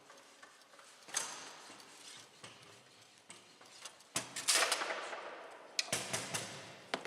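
Foosball play on a Bonzini table: sharp knocks of the ball being struck by the players and rods clattering, with a loud cluster of hits and rattling about four and a half seconds in.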